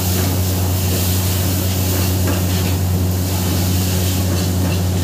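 Flaming pan of frying food on a high-pressure commercial gas burner: a steady hiss and rush of fire and frying over a steady low hum.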